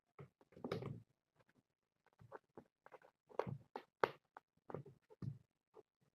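Kittens scampering and playing, their paws pattering and scuffling with light irregular thumps, fainter near the end.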